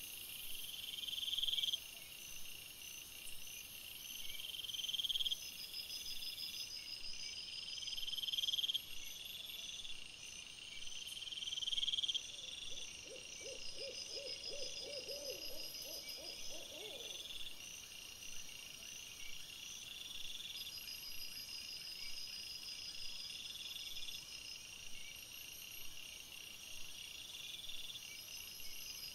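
An owl's long, wavering hoot, about halfway through, over a faint high-pitched chirping that repeats throughout.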